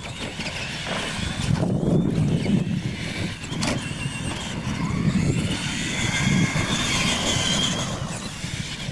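R/C monster trucks running on a dirt track: the electric motors and gears of the scale trucks whine, with a wavering high whine in the second half over a steady low rumble.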